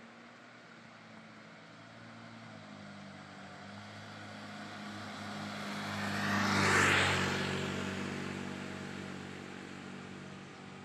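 A motorbike passing by on an asphalt road: its engine and tyre noise builds up, is loudest about seven seconds in, then fades away.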